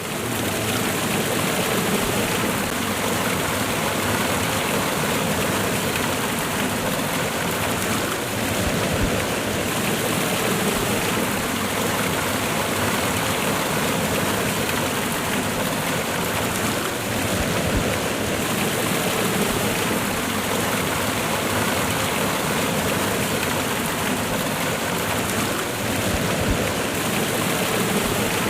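Water of a cascade waterfall rushing and splashing over rocks, a steady, even rush without pauses.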